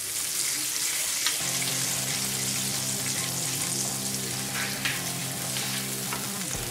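Hot oil-and-water tempering in a pan sizzling with a steady hiss as a wooden spatula stirs in sugar and salt, with a few light taps of the spatula against the pan. Soft background music with held tones comes in about a second and a half in.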